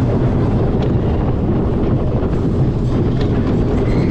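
Vekoma mine train roller coaster running along its steel track, heard from the back car: a steady, loud wheel rumble and rattle, with a couple of sharp clicks.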